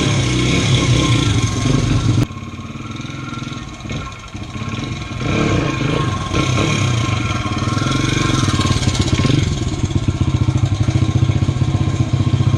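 Two-stroke dirt bike engine running and revving. It drops away abruptly about two seconds in, then builds back up and runs loud and pulsing near the end.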